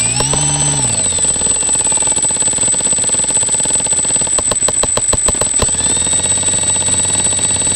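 The crashed DJI F450 quadcopter's brushless motors winding down, their hum falling in pitch and fading within the first second. A steady high electronic whine follows, with irregular sharp clicks and ticks.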